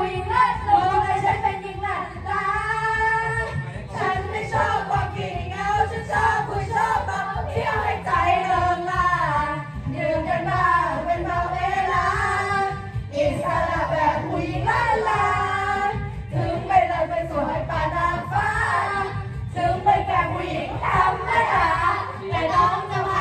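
Karaoke: teenage girls singing loudly into microphones over a pop backing track, several voices together.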